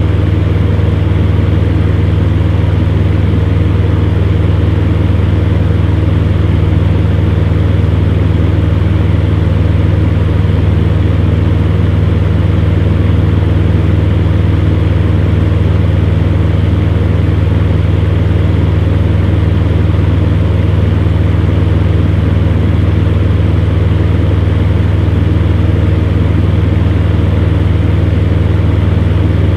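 Electric fan running steadily: a constant low motor hum with the whoosh of moving air over it.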